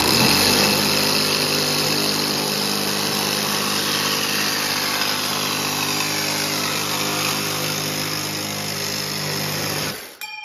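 Cordless reciprocating saw running steadily as it cuts through a metal intake tube, stopping near the end.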